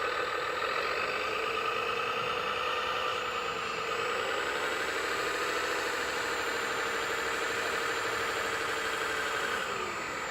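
Small electric motor and gearbox of a radio-controlled truck whining under load, stepping up in pitch about four seconds in and falling away near the end.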